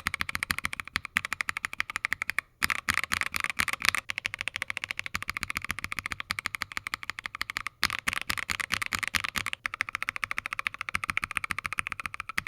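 Fast typing on a mechanical keyboard fitted with Akko Jelly Black linear switches: a dense, even stream of high-pitched clacks, broken by short pauses about two and a half, seven and a half and nine and a half seconds in.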